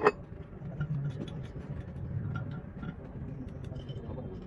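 A sharp metal clank with a brief ring, then scattered light metallic ticks and taps over a steady low rumble.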